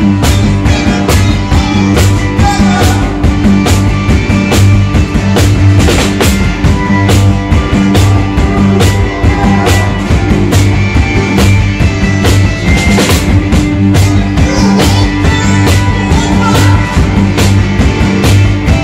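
Live trio playing krautrock-style instrumental music: a drum kit keeps a steady driving beat under electric guitar and synthesizers, over a held low note.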